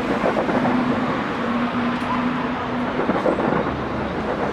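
Dense hubbub of a large outdoor crowd, many voices blending into a continuous roar, with a low steady hum that comes and goes during the first three seconds.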